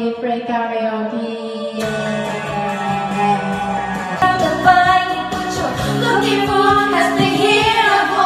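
Background pop song with a female singer; a fuller backing with bass and percussion comes in about two seconds in.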